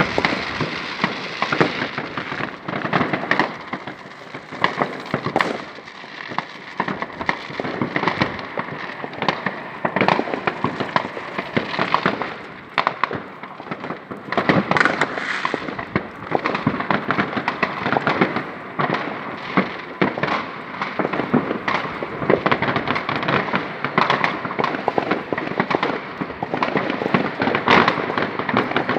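New Year's Eve fireworks and firecrackers going off continuously: a dense, irregular mix of sharp bangs and crackling, with louder bursts now and then.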